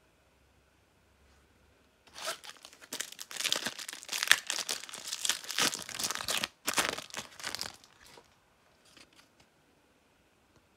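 A Topps Turbo Attax F1 trading-card booster pack being torn open, its wrapper crackling and crinkling in quick runs for about six seconds, starting about two seconds in. A few faint rustles follow near the end.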